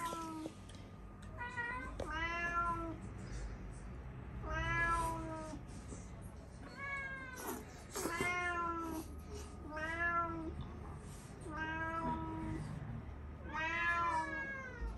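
Domestic cat meowing over and over, about eight drawn-out meows spaced a second or two apart, each arching up and then down in pitch.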